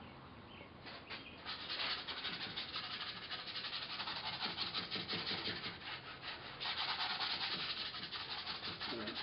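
Paintbrush scrubbing oil paint onto a small canvas panel in rapid back-and-forth strokes, laying in a toned ground. The scrubbing starts about a second and a half in and eases briefly midway.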